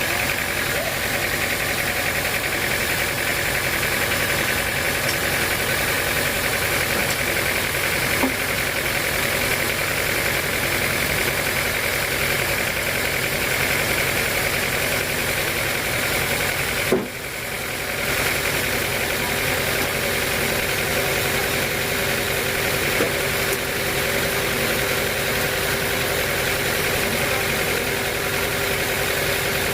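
Sawmill machinery running steadily with a continuous mechanical drone. There is a short click and a brief drop in level a little past halfway.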